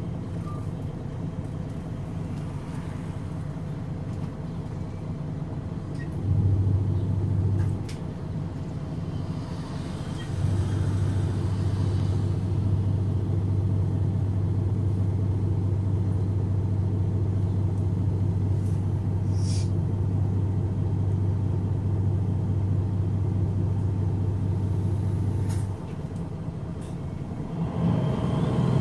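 A MAN NG313 articulated bus's D2866 turbocharged lying inline-six diesel idling at a stop. Its low steady hum grows louder twice, briefly and then for a long stretch, with a short air hiss about two-thirds through. Near the end the engine revs up with a rising pitch as the bus starts to pull away.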